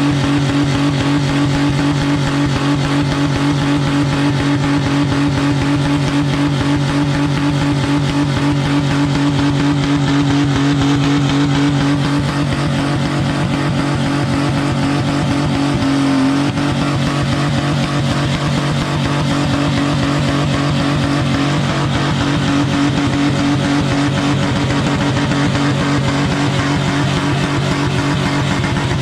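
Car engine held at high, steady revs during a burnout, the pitch holding for about twelve seconds and then wavering up and down as the revs are worked.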